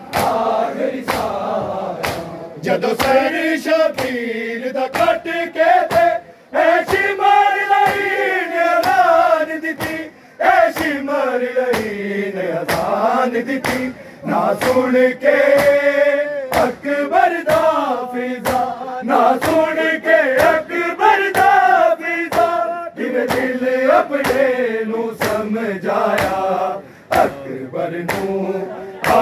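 A group of men chanting a noha, a Muharram mourning lament, in unison, with long wavering sung lines. Sharp slaps of hands on bare chests (matam) keep a steady beat under the chant.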